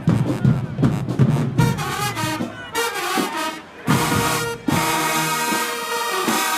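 Marching band playing: drum hits give way about a second and a half in to the brass section, which swells into long held chords near the end.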